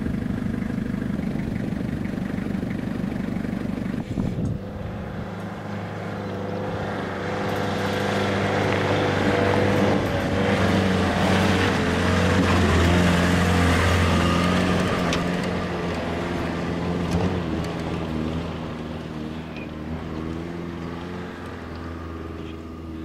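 An engine running steadily. It changes character about four seconds in, builds to its loudest in the middle, then eases off.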